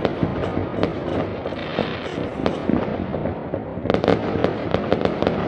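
Fireworks going off: a constant crackle of pops and bangs from scattered launches, with a tight cluster of sharp bangs about four seconds in.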